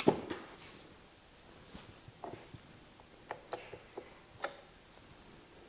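A tilt-head stand mixer's head knocks as it is lifted, loudest right at the start. Then comes a scatter of small metallic clicks and clinks as the batter-coated flat beater is worked off its shaft.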